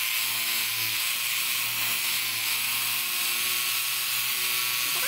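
Corded handheld electric power saw running at a steady speed as it cuts into a dead tree branch: an even motor hum with a hiss above it.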